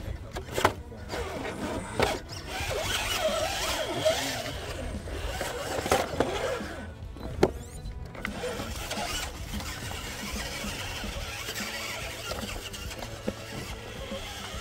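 Electric RC rock crawler working over loose rock: its motor and gears whine as it crawls, and its tyres and chassis knock and clack on the stone. The sharpest clacks come about half a second, two seconds and seven seconds in.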